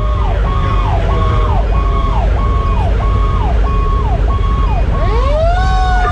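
Fire engine siren cycling in a fast repeating wail, about two sweeps a second, over the low rumble of the truck's engine and road noise, heard from on board. About five seconds in, a second siren tone sweeps up in pitch and then slowly falls.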